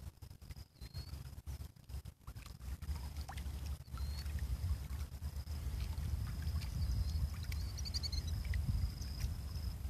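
Wind buffeting the microphone in a gusty low rumble at the edge of a reservoir, with small waves lapping at the muddy shore. A faint steady high tone runs underneath, and a few faint short high chirps come through, a quick run of them about eight seconds in.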